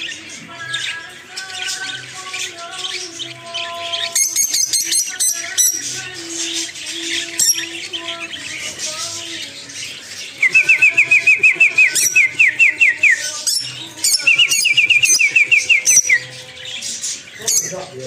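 Caged lovebirds chirping: scattered chirps at first, then from about ten seconds in loud runs of fast, repeated sharp chirps in bursts of two to three seconds.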